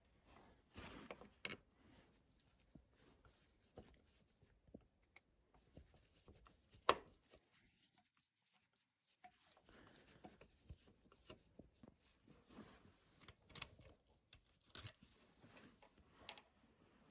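Faint workshop handling sounds: scattered small clicks and taps with stretches of rubbing or scraping as parts and tools are worked by hand, one sharper knock about seven seconds in, and a brief near-silent pause just after it.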